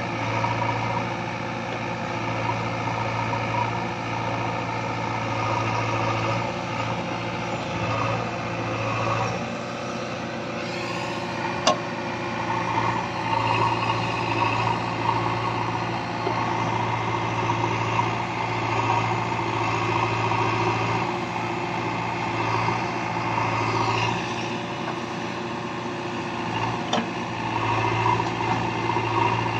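JCB 3DX backhoe loader's diesel engine running steadily as the machine works, with a sharp knock about twelve seconds in and another near the end.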